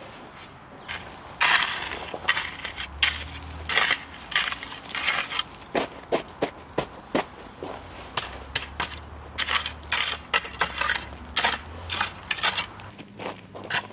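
A rake scraping and dragging through crushed gravel, stones rattling and grinding, in quick repeated strokes.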